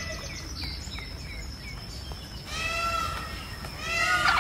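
Indian peafowl calling: a few faint short notes, then two loud, arching calls, one just past the middle and one near the end.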